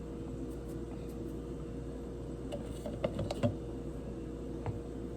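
Steady background hum, with a short run of light clicks and taps about halfway through and one more near the end.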